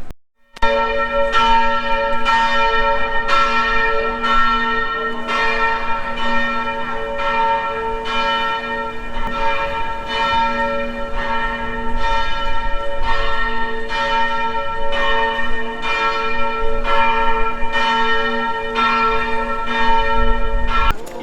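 A single large church bell tolling, struck about once a second, each stroke ringing on into the next; it starts abruptly after a moment of silence.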